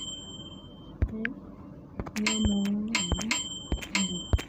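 Phone on-screen keyboard key-press sounds while typing: about ten irregular taps, several of them a click with a short, bell-like ring.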